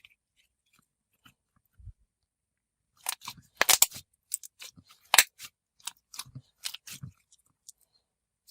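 Chewy mochi-texture slime (Tikoy, a thick jiggly slime) being worked by hand, giving a run of sharp pops and clicks that begins about three seconds in and ends near the end.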